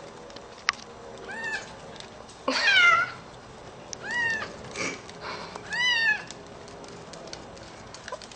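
A domestic cat meowing four times over about five seconds. Each meow rises and falls in pitch, and the second is longer and slides downward.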